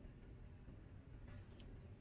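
Near silence: low, steady room noise with a couple of faint clicks near the end.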